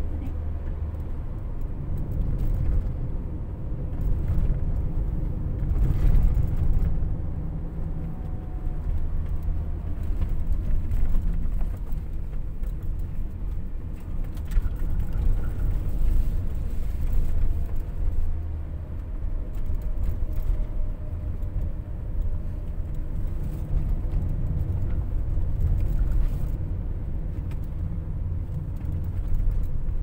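Inside the cabin of a Toyota Noah 70-series minivan going down a winding mountain road, its CVT held in a low step of its seven-step manual mode for engine braking: a low engine drone mixed with tyre and road rumble that swells and eases.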